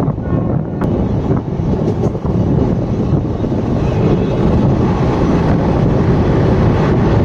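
Express passenger train running at speed, heard from the open door of a coach: a steady, loud rumble of wheels on the rails mixed with rushing wind, with a few faint clicks.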